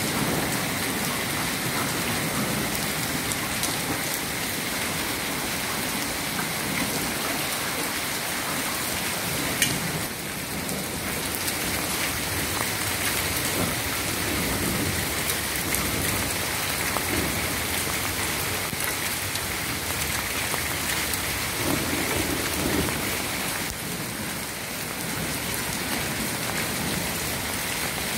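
Hail and rain falling together, hitting the street and roofs in a steady dense hiss of many fine ticks, with one sharper tick about ten seconds in.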